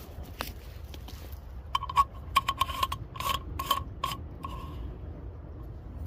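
A quick run of light metallic clinks, each with a short ringing tone, from a titanium mug being handled. The clinks start about two seconds in and stop about two seconds later.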